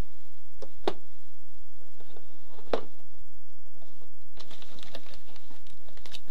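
Hands handling gear on a wooden workbench: a couple of light knocks, then from about four seconds in, packaging rustling and crinkling as a hand rummages in a cardboard box.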